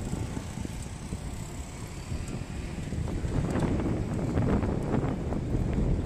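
Road and wind noise from riding in a moving vehicle, with faint rattling. It grows louder about halfway through.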